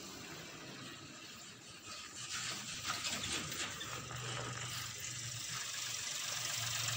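Rapid mechanical ticking and rattling for about two seconds, then a motor vehicle's engine running with a steady low hum from about four seconds in. The hum drops out briefly and comes back near the end.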